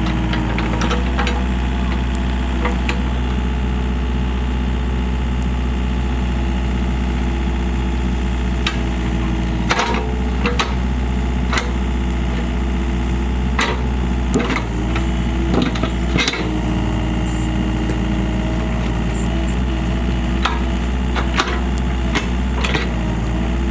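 Excavator engine running steadily while it digs, with scattered sharp knocks and clanks from the working machine, most of them in the middle and toward the end.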